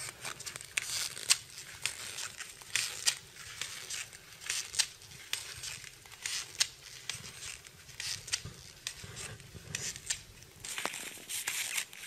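Snow crunching in irregular steps, with sharp crackles a few times a second that come thicker near the end.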